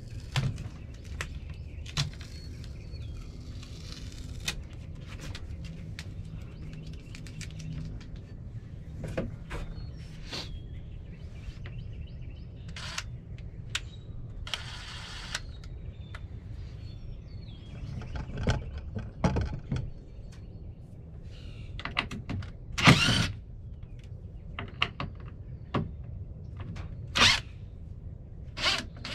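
Cordless impact driver running in several short bursts as hinge screws are backed out of a wooden cabinet door, the loudest burst about two-thirds of the way through. Clicks and knocks of the screws and hinge hardware being handled come in between, over a steady low rumble.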